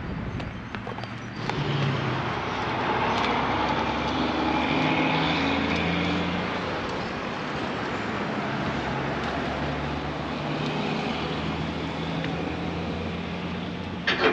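A motor vehicle engine runs steadily with traffic noise, its drone shifting slightly in pitch. There is a single sharp knock near the end.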